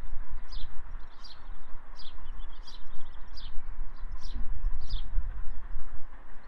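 A bird calling over and over, a short high chirp that slides downward, about seven times at an even pace, over a low, uneven rumble.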